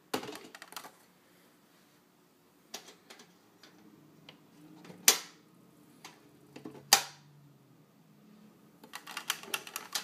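Hoover C2818 tub vacuum's plastic motor head being seated on its steel bucket and the wire toggle clips snapped shut: a clatter of knocks at the start, two loud sharp clicks in the middle about two seconds apart, and a quick rattle of clicks near the end.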